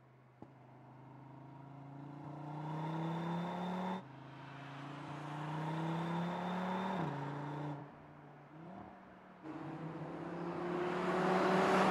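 Audi RS3's turbocharged five-cylinder engine pulling hard, its note rising in pitch and growing louder, with sudden pitch drops about four and seven seconds in as the dual-clutch gearbox upshifts. It eases off for a moment, then accelerates again, rising steadily near the end.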